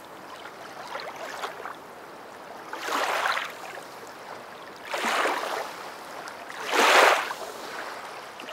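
Rushing water noise that swells and fades about every two seconds, loudest about seven seconds in.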